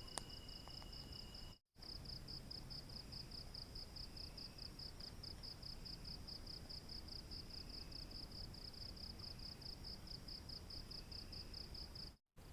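Night insects calling: one high, even pulsing call at about five pulses a second, with a second steady high-pitched trill that stops when the sound cuts out briefly about 1.7 s in. The sound drops out again briefly near the end.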